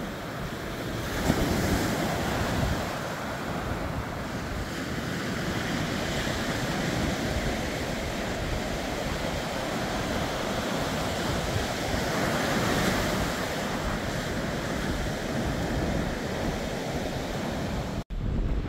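Ocean surf breaking, with wind on the microphone. The wash swells about a second in and again around twelve seconds, and the sound cuts off suddenly near the end.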